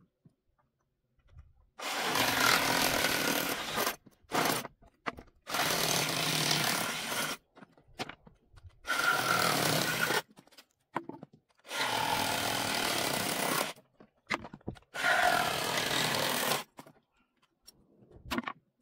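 Power saw cutting into wooden pallet boards in five bursts of about two seconds each, stopping briefly between cuts.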